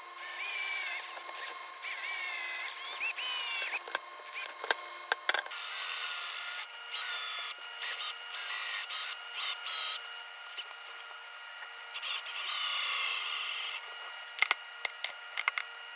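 Small electric drill motor running in repeated short bursts, a second or two each, its high whine dipping and rising in pitch between starts and stops.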